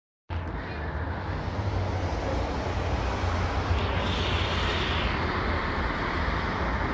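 Steady low rumble and rushing noise of a vehicle in motion, starting just after the opening moment. A higher hiss rises briefly about four seconds in.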